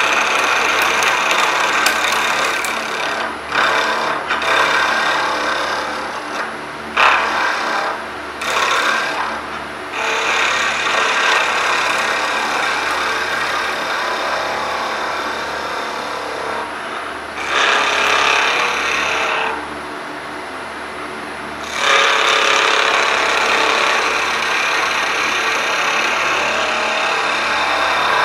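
Skew chisel cutting a spinning oak blank on a wood lathe, a dense hissing scrape over the steady hum of the lathe motor. The cutting comes in long passes that stop briefly several times, longest about two-thirds of the way through, while the lathe keeps running.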